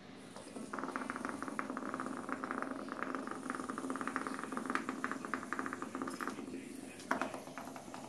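HEXBUG Nano robotic toy's vibration motor buzzing as the little bristle-legged bug skitters across a hard vinyl tile floor, a fast rattling. It stops about six seconds in, then starts again briefly near the end.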